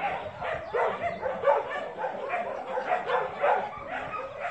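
Puppy yapping and yipping in play, short high calls coming about two a second.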